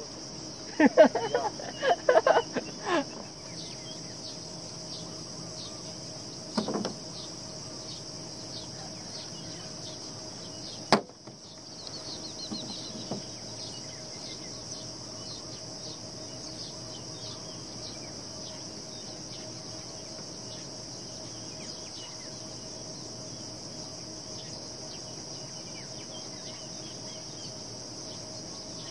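Insects shrilling steadily in a high, even drone, with a single sharp click about eleven seconds in.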